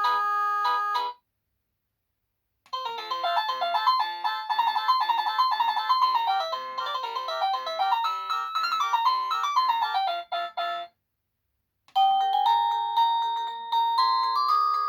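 EMASTIFF wireless doorbell playing its polyphonic electronic ringtones one after another. One tune ends about a second in, a second melody plays for about eight seconds, and after a short pause a third tune starts near the end.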